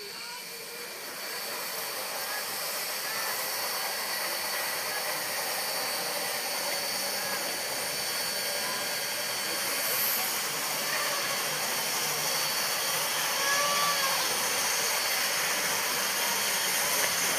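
Steam locomotive hissing steam steadily, growing louder over the first few seconds and then holding.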